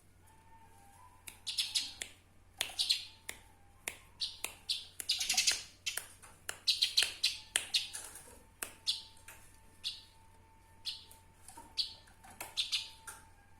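Eurasian tree sparrows (burung gereja) chirping: many short, sharp, high chirps, often in quick clusters of several, with short pauses between clusters.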